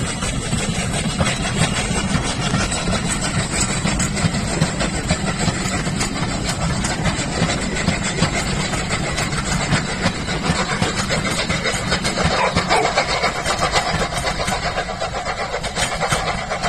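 Steam locomotive 60103 Flying Scotsman, an LNER A3 Pacific, passing with a train of coaches: a steady, noisy rumble of the engine and the carriages rolling by.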